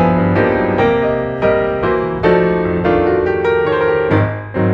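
Background piano music: a gentle run of struck notes and chords, each fading before the next.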